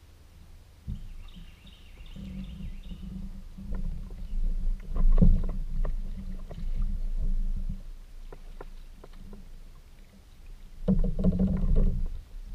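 Sounds of paddling and moving about on a plastic sit-on-top fishing kayak (Jackson Kayak Coosa HD), heard through the hull: low rumbles with scattered knocks and clicks from paddle strokes. A louder bout of knocking and rumbling near the end comes as the angler stands up on the deck.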